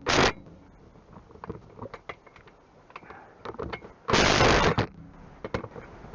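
Socket ratchet wrench clicking as a bolt is run in, with a short burst at the start and a longer one about four seconds in. Light clicks and tool handling fill the gap between.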